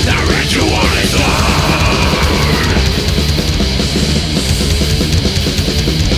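Death metal song playing: distorted guitars over fast, dense drumming, at a steady high level.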